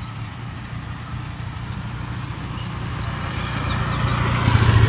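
Low engine rumble of a motor vehicle growing steadily louder as it approaches, loudest near the end.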